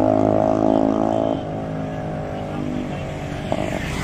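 Motorcycle engine running at a steady speed on the move, a loud even drone that drops back about a second and a half in, with a single sharp tick near the end.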